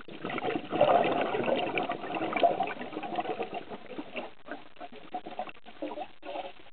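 Scuba diver's exhaled bubbles gurgling underwater. A dense burst is loudest in the first couple of seconds, then breaks up into separate bubbling pulses that fade out near the end.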